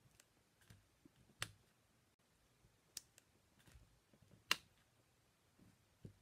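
Near silence broken by a few faint, sharp clicks and taps, the loudest about four and a half seconds in: a pen-like pick-up tool lifting rhinestones off their backing sheet and pressing them onto a cardstock card.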